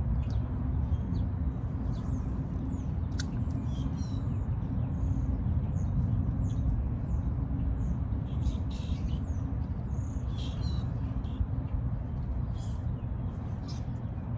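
Small birds chirping and calling on and off, more busily in the second half, over a steady low outdoor rumble.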